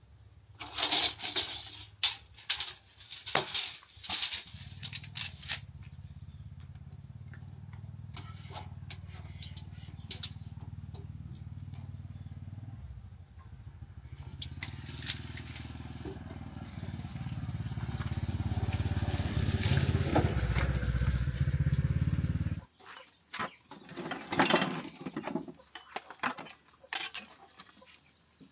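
Sharp clicks and knocks from handling large plastic drums. From about four seconds in, a steady low mechanical hum builds up and then cuts off suddenly about three-quarters of the way through, followed by more scattered clicks.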